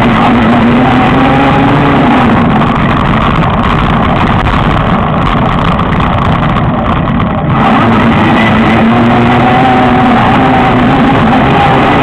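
Car-alternator e-bike motor whining under power on a climb, its pitch wavering, under a loud steady rushing of wind and road noise. The whine drops away for a few seconds in the middle and comes back about seven and a half seconds in.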